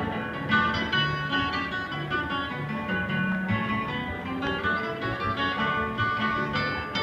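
Live bluegrass band playing on fiddle, mandolin, acoustic guitar, banjo and upright bass, with a steady walking bass line under the strings.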